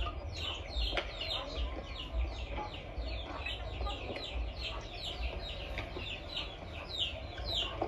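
A steady run of short, high, falling chirps, about four a second, from an unseen source, with a sharp hit of a badminton racket on the shuttlecock about a second in during a rally.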